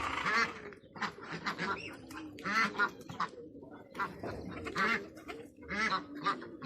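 A flock of ducks quacking, a run of short harsh calls one after another, about two a second.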